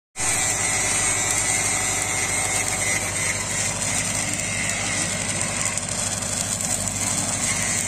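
Stick-welding arc crackling steadily as a 6010 electrode lays the root pass on a steel pipeline joint, over the steady drone of an engine running.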